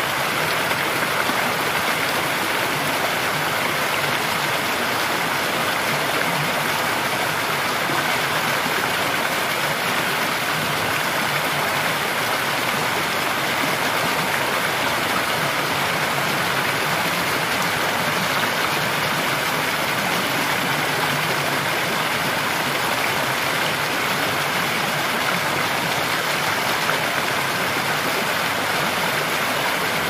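Running water of a shallow rocky stream: a steady, even rush with no breaks.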